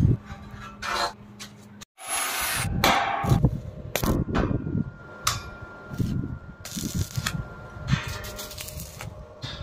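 Irregular metal clanks and knocks as steel stair parts, channel stringers and grating treads, are handled and set in place, with a brief gap about two seconds in.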